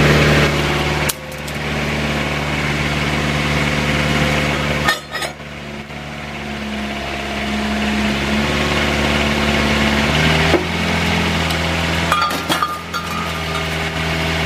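Excavator diesel engine running under changing hydraulic load as it works a hydraulic scrap shear. The engine note drops and shifts a few times. A few sharp metallic clanks come around the middle and near the end.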